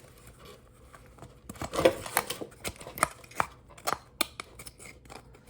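Plastic parts of a car side-mirror assembly being handled and fitted together by hand: a string of sharp clicks and light knocks, the loudest about two seconds in.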